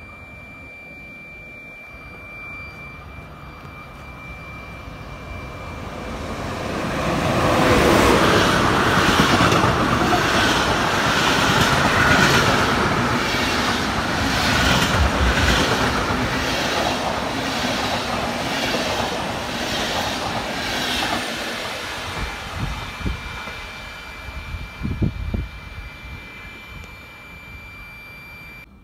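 Electric locomotive hauling a long train of passenger coaches past on the near track. It grows louder from about six seconds in, then gives a long stretch of wheel and rail noise with a regular clatter of wheels over rail joints, about one or two beats a second. It fades away in the second half, with a few low thumps near the end.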